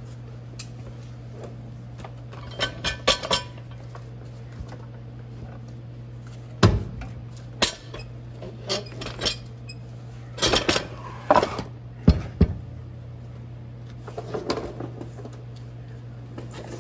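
Irregular metal clanks, knocks and clinks, in scattered clusters, as a Ford C4 automatic transmission is worked loose and slid back on a floor jack. A steady low hum runs underneath.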